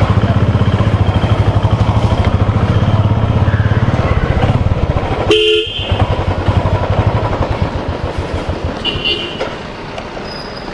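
Royal Enfield Bullet 350's single-cylinder engine running with its steady rhythmic exhaust pulse while riding, growing quieter after about eight seconds. A horn sounds once, briefly, about five seconds in.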